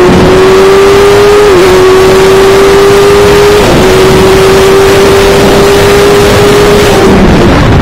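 Sport motorcycle engine at high revs under full throttle, heard onboard through heavy wind rush. The pitch climbs steadily and dips briefly twice as the rider makes quick upshifts, then falls near the end as the throttle closes.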